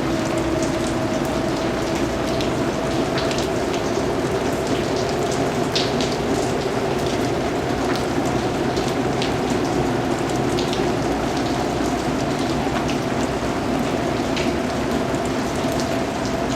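Steady rain falling on a surface, with separate drops ticking sharply through a dense hiss. A steady low drone runs underneath.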